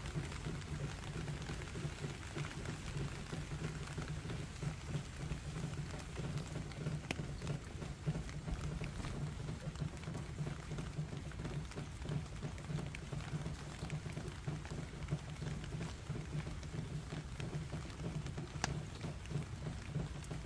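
Steady rain falling on gravel and a plastic tub, with a few sharp drop ticks and a steady low rumble underneath.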